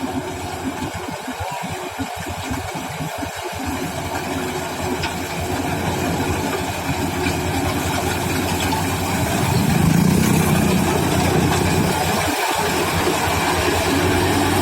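Rice combine harvester's engine running steadily, growing louder over the first ten seconds, then holding steady.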